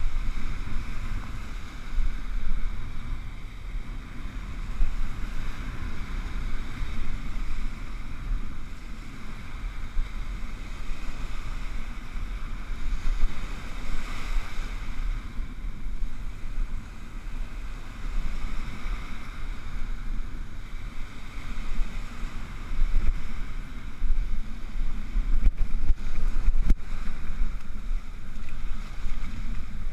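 Stiff onshore wind rumbling on the microphone over surf washing and foaming up the beach, the wash swelling and fading in surges.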